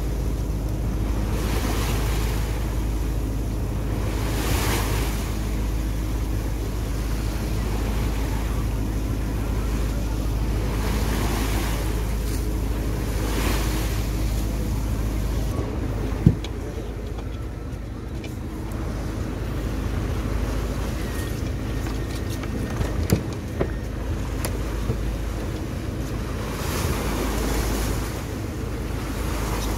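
A fishing boat's engine runs steadily under way, a low hum throughout, with wind on the microphone and water rushing past in swells every few seconds. A few sharp knocks come about halfway through.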